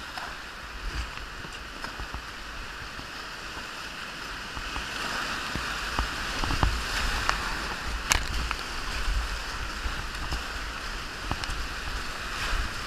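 Whitewater rapid rushing steadily around a kayak, growing louder through the middle as the boat drops into the white water, with a low rumble and a few sharp knocks and splashes from the paddle strokes.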